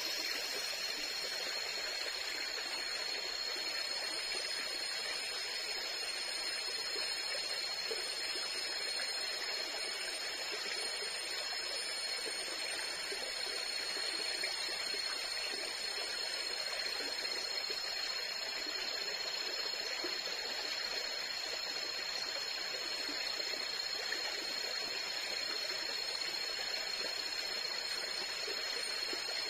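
Steady rush of a forest stream flowing, with a constant high-pitched whine over it.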